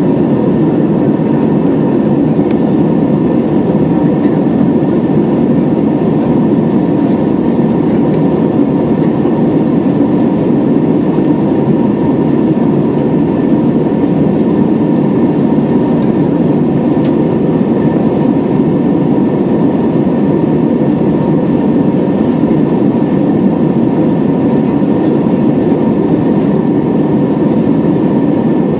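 Airliner cabin noise in flight on an Airbus A320-214: a steady, loud rush of airflow and the drone of its CFM56-5B turbofan engines, with a faint steady whine on top.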